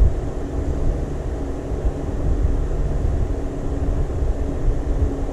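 Steady low droning of a running fan, with a faint hum.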